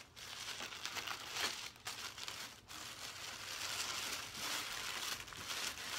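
Crinkly white wrapping being crumpled and pulled apart by hand as a cosmetic sample is unwrapped, a continuous rustling crackle.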